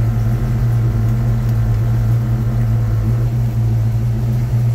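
Chevrolet ZZ4 aluminum-head small-block V8 idling steadily, a low even drone.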